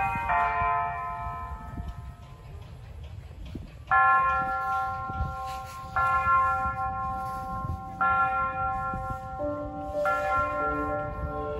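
Church bells ringing. After a quieter stretch, bells of different pitches are struck one at a time about every two seconds, each note ringing on until the next.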